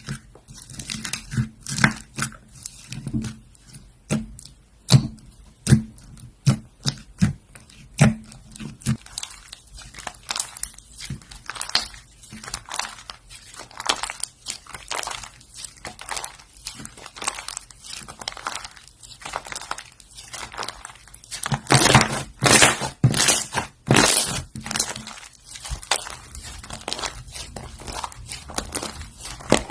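Slime being squished and poked by hand, making an irregular run of sticky clicks and small pops, busiest and loudest about two-thirds of the way through.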